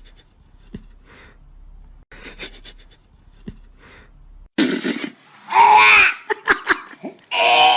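Wheezing laughter: soft breathy sounds at first, then loud gasping bursts of laughter in the second half.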